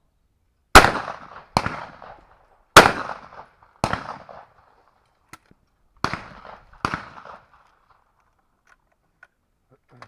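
Shotguns firing at clay targets: six loud shots in three quick pairs, each shot ringing out briefly.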